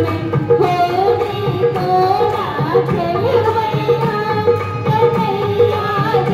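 Indian folk dance music: a singer's gliding melody over a steady hand-drum rhythm.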